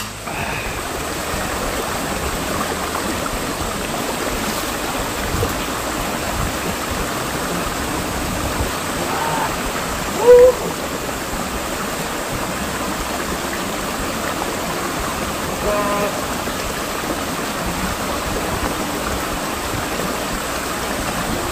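Stream water rushing steadily, with a few brief calls over it; the loudest is a short, sharp one about ten seconds in.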